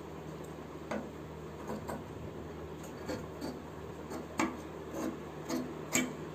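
Large tailor's scissors cutting through folded suit fabric: about eight short, irregularly spaced snips over a faint steady hum.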